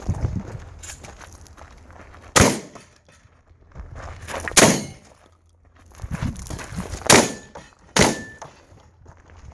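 Four shotgun shots, unevenly spaced: two a couple of seconds apart, then two more about a second apart near the end, each with a short echo.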